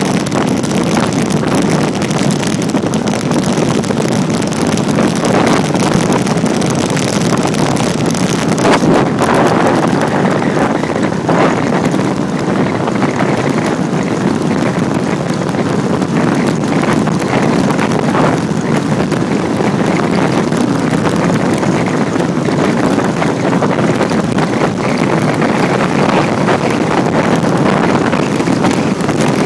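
Steady, loud wind buffeting the microphone of a road bicycle riding downhill at speed.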